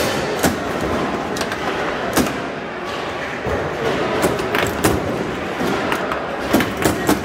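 Foosball table in play: sharp, irregular clacks and knocks of the ball striking the players and the rods being snapped, over a steady background of hall noise.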